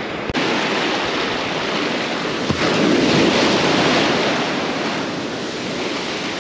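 Ocean surf washing onto the beach, swelling louder about halfway through as a wave breaks and then easing off, with wind on the microphone.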